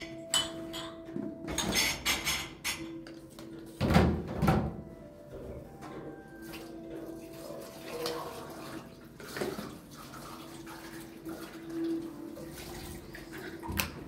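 Irregular clatter and knocks of objects being handled, with some water sounds. The loudest, a heavy knock, comes about four seconds in.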